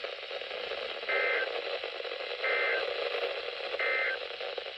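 Emergency Alert System end-of-message code over radio static: three short bursts of two-tone data warble, a little over a second apart, the SAME 'NNNN' signal that marks the end of the severe thunderstorm warning.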